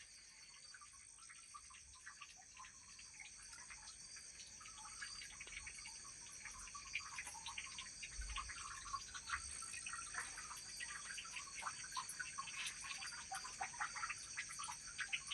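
Faint night chorus of frogs calling in many short croaks, over a steady high shrill of crickets. The frog calls grow louder and busier about a third of the way in.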